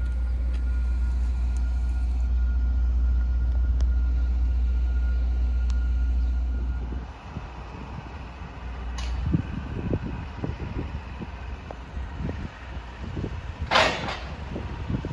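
Wind buffeting the microphone, a heavy low rumble with a faint steady whine above it, easing after about seven seconds into lighter, uneven gusts. One short sharp noise near the end.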